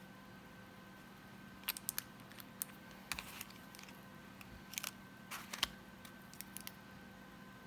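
Nail-stamping tools being handled: a run of light clicks and taps with two short scrapes, about three and five and a half seconds in, as polish is scraped across the stamping plate and picked up. A faint steady hum lies underneath.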